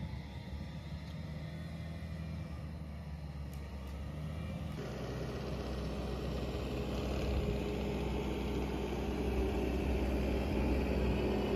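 Skid-steer loader's engine running steadily. About five seconds in it grows louder and a higher steady tone joins in.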